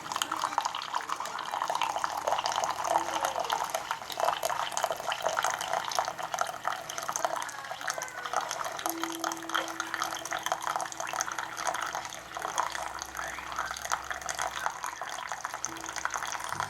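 Keurig B40 Elite single-cup coffee maker brewing a large cup: hot coffee streams and sputters into the cup, with a steady hum for a few seconds in the middle.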